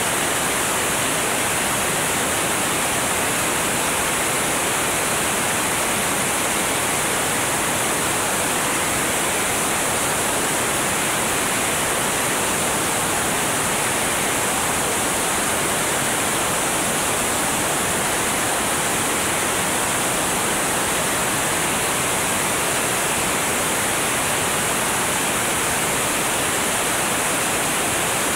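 Steady rushing wind noise over a camera mounted under the wing of a single-engine high-wing light aircraft in flight, with the engine and propeller buried in the hiss. It holds even throughout, with no rise or fall.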